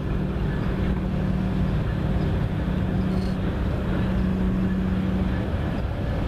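Distant freight train crossing a steel truss lift bridge: a steady low diesel-locomotive drone that weakens near the end, over wind rumbling on the microphone.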